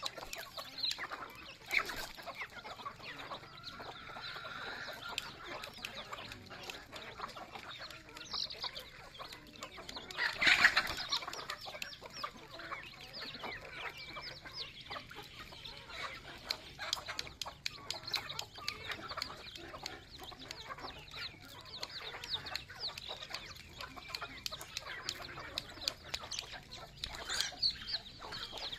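A flock of native chickens clucking while they feed, with one louder call from a single bird about ten seconds in.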